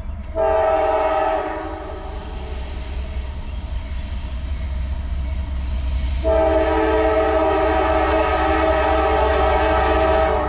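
Diesel freight locomotive's air horn sounding a multi-note chord at a grade crossing: one short blast about half a second in, then a long held blast from about six seconds in. Under it, the low rumble of the approaching train slowly grows louder.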